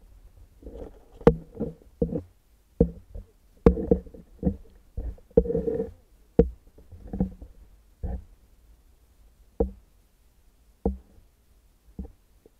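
Muffled knocks and sloshing thuds in the water, picked up by an underwater camera being bumped and jostled. There is a dense run of bumps with a couple of sharp clicks in the first six seconds, then single thuds about every second or so.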